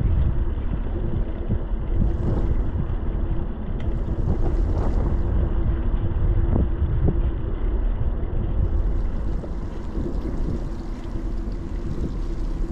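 Wind rumbling on a bike-mounted GoPro's microphone while riding, over road noise with a faint steady hum and a few knocks from bumps in the road.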